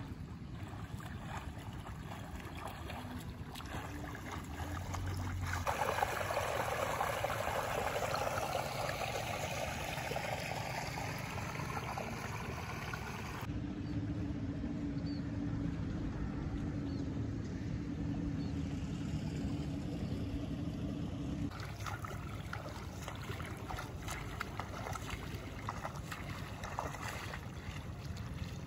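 Outdoor field sound dominated by a low rumble of wind on the microphone. A hissing, water-like noise comes in about five seconds in and stops suddenly about eight seconds later. A steady low hum like a distant engine then runs for about eight seconds and cuts off, leaving the rumble with faint scattered ticks.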